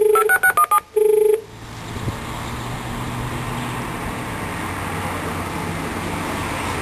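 A station help-point intercom's speaker plays a buzzy dial tone, then a quick run of touch-tone dialing beeps as it calls the automated information line. The dial tone sounds again briefly. After about a second and a half there is a steady hiss of open line and background noise while the call connects.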